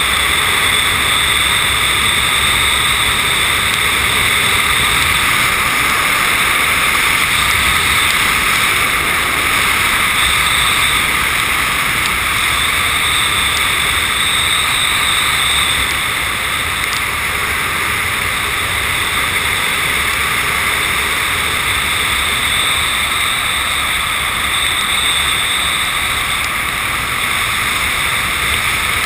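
Steady rush of airflow over the microphone, mixed with the helicopter's rotor noise from above, heard by someone slung on a long line beneath the helicopter in flight. It dips slightly about halfway through.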